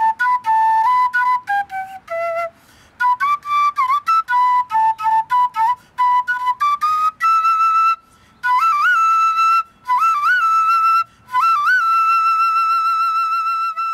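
PVC quena, an end-blown notched Andean flute, playing a melody: quick stepwise notes with short breaths between phrases, then three phrases that each slide up into a long held high note, the last held until it stops at the very end.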